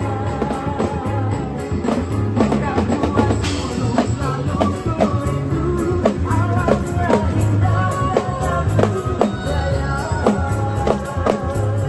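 Drums played live on marching-style snare and bass drums with a cymbal, over music with a melody and a steady low beat about twice a second.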